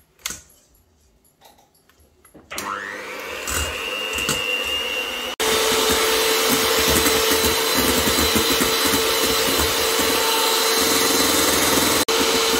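Mandine electric hand mixer switched on about two and a half seconds in, its motor whirring up to speed, then running steadily and louder from about five seconds in as the beaters whisk egg whites in a stainless steel bowl. The whites are being beaten lightly to prepare them for the cooked sugar syrup of an Italian meringue.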